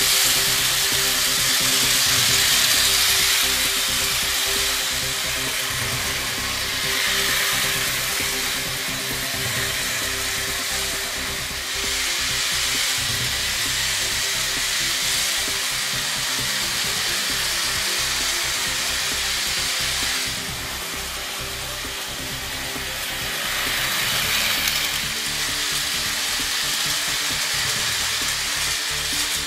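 Three toy Shinkansen trains fitted with high-revving Tamiya Mini 4WD motors (Ultra-Dash, Sprint-Dash, Power-Dash) running together on plastic track: a continuous buzzing whine with wheels rattling over the track joints, swelling and fading as the trains pass close by.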